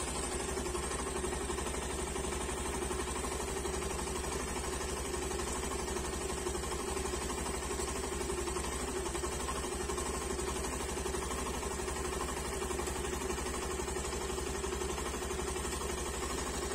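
Vehicle engine idling with a steady, unchanging drone.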